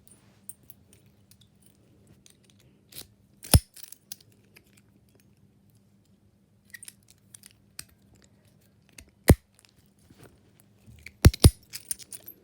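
Sharp metallic clicks from handling a 50 mm Tri-Circle 265 brass padlock: one about three and a half seconds in, another a little after nine seconds, and a quick double click near the end, with fainter ticks between.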